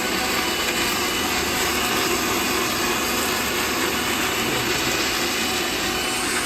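Kitchen machine motor running with a steady, unbroken roar.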